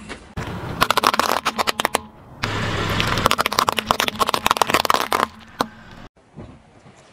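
A car tyre rolling over and crushing a pile of small round objects, with rapid crackling and popping as they burst. It comes in two runs, a shorter one and then a longer one that ends a little after five seconds in.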